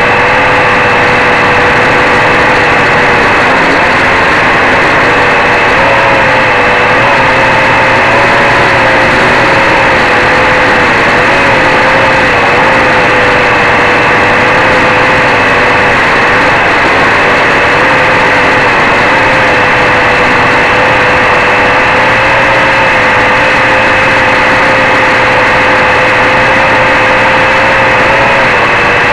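Quadcopter's four DT750 brushless motors spinning 11x4.7 propellers in flight, heard up close from a camera mounted on the frame: a loud, steady buzzing whine whose pitch wavers slightly as the throttle shifts.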